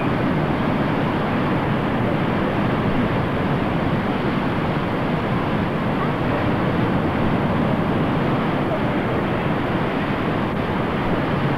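Steady rushing noise of sea surf and wind at the beach, an even roar with no distinct events.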